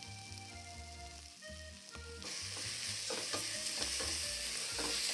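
Choricero pepper pulp being scraped from a small glass bowl with a wooden spoon into a hot pot of sauce base, which starts sizzling loudly about two seconds in and keeps sizzling steadily, with a few scrapes of the spoon.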